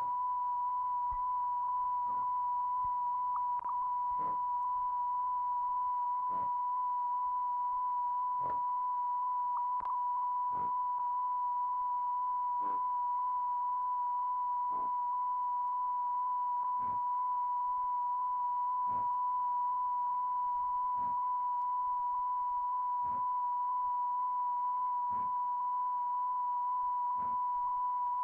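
A steady, unbroken electronic test tone at a single high pitch, with faint soft clicks about every two seconds.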